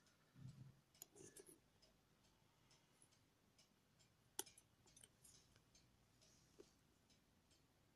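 Near silence: faint room tone with a few soft clicks and low knocks, the sharpest click about four seconds in.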